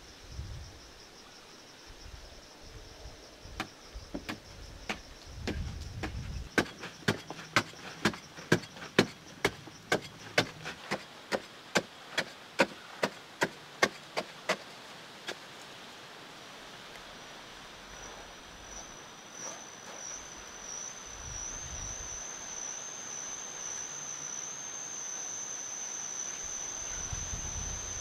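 A primitive hand digging tool chopping into hard-packed clay soil, sharp strikes at about two a second for some ten seconds, then stopping. After that a high, steady insect drone comes in and grows louder.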